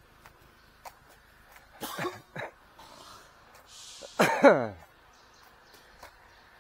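A man's throat sounds: a couple of short vocal noises about two seconds in, then a loud cough-like sound falling in pitch just after four seconds.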